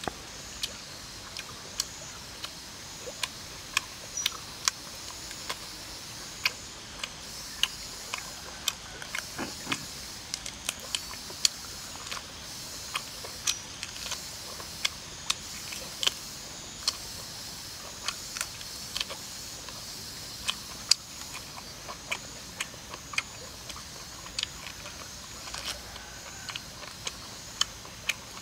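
Close-up eating sounds of a person chewing and biting roasted chicken with the fingers: a steady stream of short, sharp, irregular wet clicks and smacks from the mouth and the crisp skin, over a steady high hiss.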